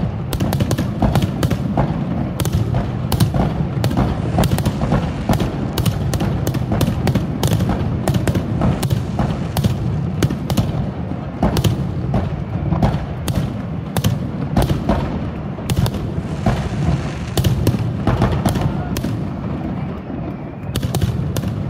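Fireworks finale: aerial shells bursting in rapid, overlapping succession, several sharp bangs a second over a continuous low rumble, easing off slightly near the end.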